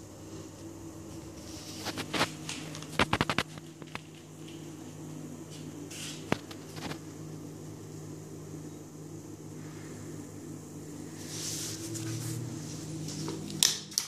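Steady low hum of a small motor, with a quick cluster of sharp clicks about three seconds in and single knocks about six seconds in and near the end.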